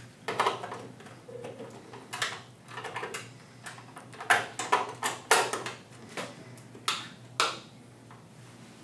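Irregular light clicks and taps of a freeze dryer's display screen assembly being handled and slid into place over its mounting studs, over a faint steady low hum.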